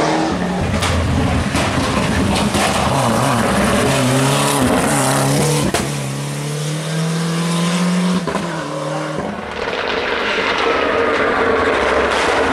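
Ford Sierra Cosworth Group A rally car's turbocharged Cosworth YB four-cylinder engine revving hard, its pitch climbing and dropping through gear changes, with a few sharp cracks from the exhaust. About nine seconds in the sound changes abruptly to the car approaching from further off, its engine note slowly rising.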